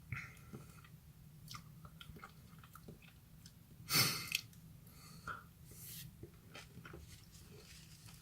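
Person chewing a peeled lemon quarter: quiet, wet mouth clicks and chewing noises, with one louder burst of noise about four seconds in.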